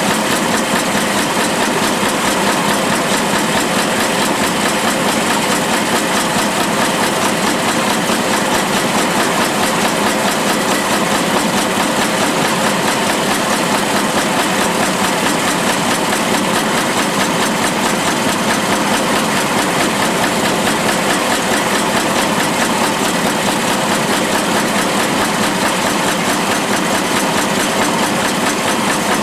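Mineral shaking table running: its electric motor and head mechanism driving the riffled deck back and forth, a loud, steady, unbroken mechanical clatter.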